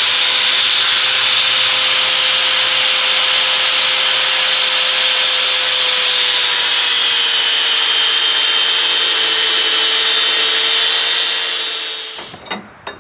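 Handheld electric power tool cutting or grinding steel for a Jeep frame repair: a loud, steady hiss over a motor whine that sags slightly under load, then shuts off about a second before the end, followed by a few light clicks.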